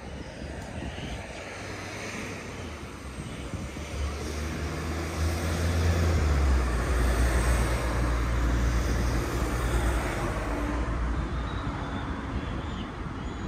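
A large engine passing: a low drone that swells from about four seconds in, holds for several seconds and fades toward the end, over steady city traffic noise.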